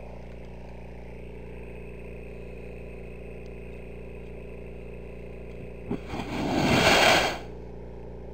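Gasoline vapour igniting inside a steel vehicle gas cylinder: a short click, then a loud whoosh of burning gas rushing out of the valve port, building for about a second and cutting off suddenly. It is the expansion of the combusting gases, the principle of a gas turbine's combustion chamber.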